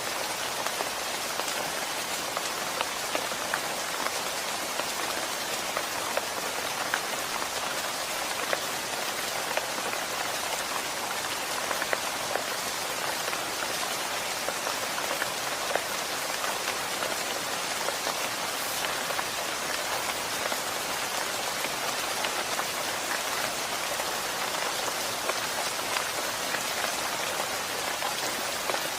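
Steady rain, with a constant hiss and many individual drops ticking sharply through it.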